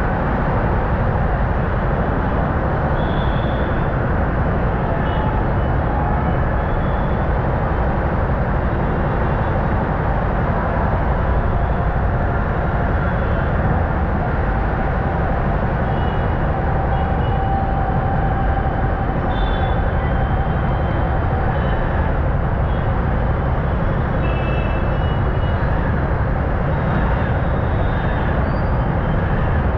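Steady traffic noise in a stopped jam: motorcycle and car engines idling close by, with a few short, faint high tones now and then.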